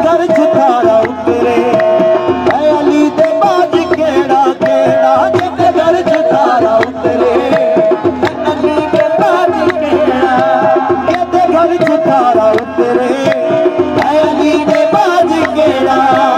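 Qawwali ensemble performing: harmoniums holding sustained notes under a lead male voice singing with wavering ornaments and backing voices, driven by steady hand-drum percussion.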